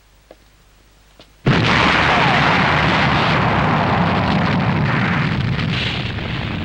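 Animated sound effect of a tank exploding: after two faint ticks, a loud blast bursts in suddenly about a second and a half in and keeps going, slowly easing off.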